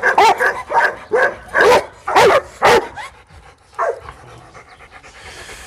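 A dog barking in a quick series, about three barks a second, breaking off about three seconds in, with one last bark near four seconds.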